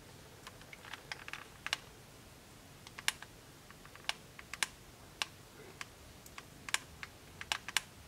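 Plastic buttons of an Android TV box remote control clicking as the thumb presses them, a dozen or so short sharp clicks at uneven intervals. The remote is sending its infrared code for a programmable button on a mini keyboard to learn.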